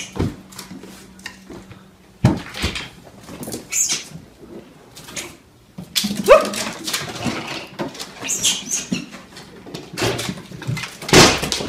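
A pet animal's short, irregular cries and yelps, one rising in pitch about six seconds in, mixed with scuffling and sharp knocks.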